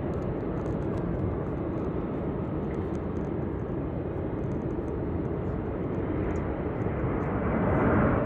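Steady rushing noise of distant jet airliner engines at an airfield, swelling briefly near the end.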